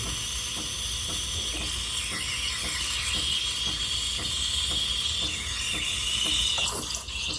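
Breville espresso machine's steam wand hissing steadily into a jug of milk, heating and frothing it. The hiss shifts near the end.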